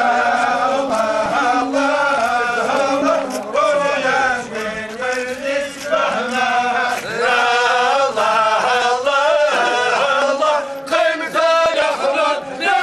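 A group of men's voices chanting together in unison, long drawn-out phrases with short breaks: a religious funeral chant sung by the procession.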